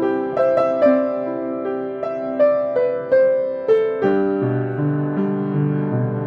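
Piano playing a slow, gentle melody over lower accompanying notes, each note struck and left to ring.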